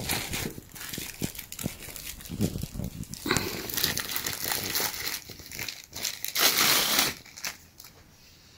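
Clear plastic bag crinkling as hands pull it open and off a flexible tripod, in irregular crackles that are loudest about six and a half seconds in and die down near the end.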